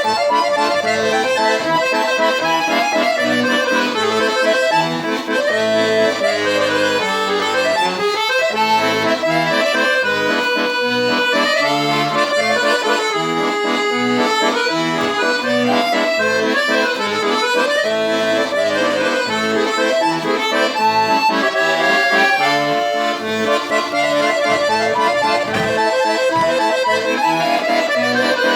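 Piatanesi accordion playing a tune with chords over rhythmic low bass notes. A register setting gives it a musette-like, slightly detuned-reed tone even though the instrument has no musette register.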